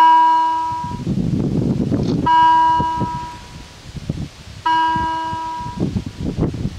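German level-crossing warning bell striking once about every two and a half seconds, three strikes in all, each ringing out and fading over about a second. It sounds while the red warning lights flash: the crossing is in its warning cycle for an approaching train. A rustling noise with some clicks fills the gaps between strikes.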